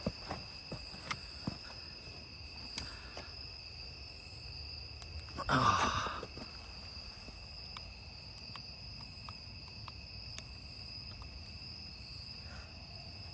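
Crickets trilling steadily at night. Over them are light knocks of an RC crawler's tyres and chassis on concrete steps, and about five and a half seconds in a short burst from its electric motor as it climbs a step, falling in pitch as it eases off.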